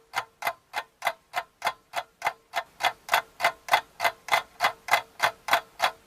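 Rapid, even ticking, about three to four ticks a second, over a faint steady tone; the ticks get louder about two and a half seconds in.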